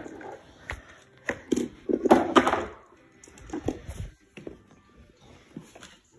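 Irregular knocks, clicks and rustling as plastic toy track pieces and cardboard packaging are handled, with a louder cluster of sound about two seconds in.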